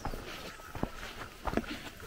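A few footsteps on a gravel dirt road, irregularly spaced, over faint outdoor background noise.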